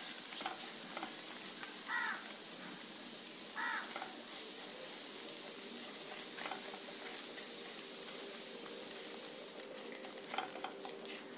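Beaten eggs sizzling in oil in a non-stick frying pan on low heat, with a wooden spatula poking and scraping them as they scramble. The sizzle is a steady hiss; near the end the spatula scrapes on the pan stand out more.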